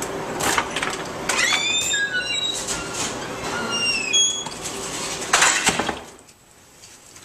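A door being unlatched and pushed open, its hinges squeaking in a run of high squeals that slide up and down, with clicks from the latch; a louder knock or bang comes about five and a half seconds in.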